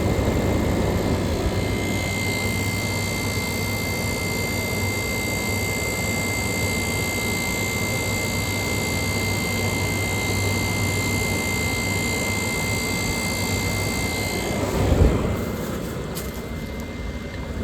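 1991–1992 Kenmore 18,000 BTU room air conditioner running with its compressor on: a steady hum and fan rush with a thin high whine. About fifteen seconds in there is a brief low thump, and the whine fades.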